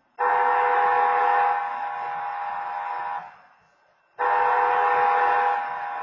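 Railroad crossing wayside horn sounding two long blasts about a second apart, each a steady multi-note chord that steps down in level partway through. The tracks stand empty, so this is typical of a phantom activation of the crossing signal set off by a slow, still-distant train.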